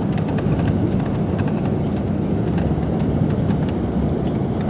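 Steady engine and road noise inside a moving coach, with frequent light ticks and rattles.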